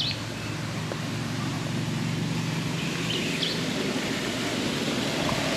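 Steady low engine hum, like a vehicle idling, which stops a little over halfway through, over outdoor noise, with a couple of short high chirps.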